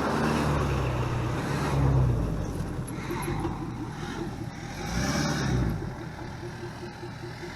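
Ford Super Duty pickup truck's engine running as the truck drives up close, swelling louder about two seconds in and again around five seconds.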